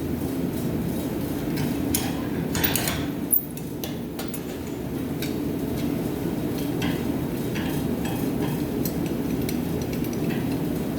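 Steady low rushing of a running forge, with scattered light metal clinks and taps as a hot steel bar is handled and tapped to take out a twist, a small cluster of them about three seconds in.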